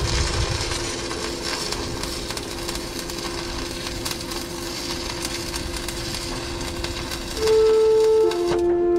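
Stick-welding arc on steel pipe, crackling and hissing steadily as the electrode burns. About seven seconds in, music with loud held notes comes in over it.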